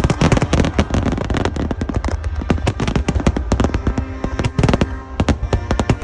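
Fireworks shells bursting and crackling in rapid succession, many sharp reports a second, with music playing underneath.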